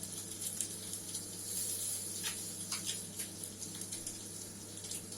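Anchovies frying in a pan of oil: a faint steady sizzle with scattered light crackles and ticks, over a low steady hum.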